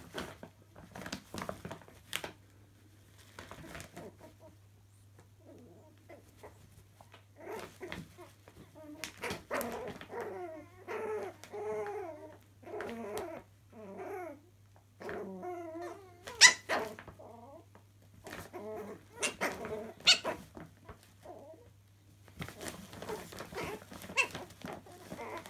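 Chihuahua puppies play-fighting: high, wavering puppy growls and whines in the middle, among sharp yaps and scuffling in a bag of clothes. A steady low hum runs underneath.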